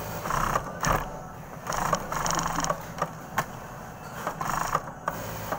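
Industrial sewing machine stitching in several short runs, with sharp clicks between them, as a collar is sewn onto a garment panel. A steady low motor hum runs underneath.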